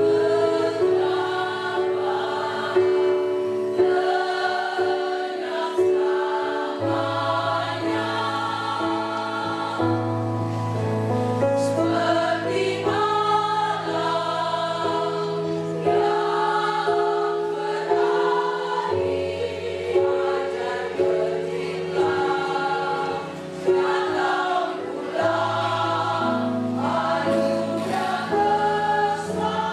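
Women's choir singing a church song over sustained low accompanying notes that change pitch every few seconds.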